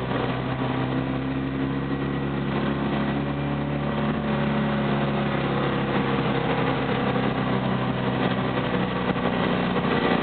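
A Fiat 500's engine running steadily while the car is driven, heard from inside the cabin, its pitch rising and falling a little near the middle.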